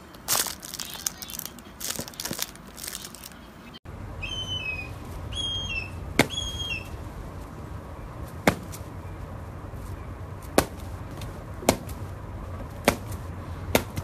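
Secretary bird kicking a rubber snake: six sharp smacks, about one every one to two seconds, with short high chirps of small birds in the background before the first smack. Before that come a few brief rustles and clicks from budgerigars.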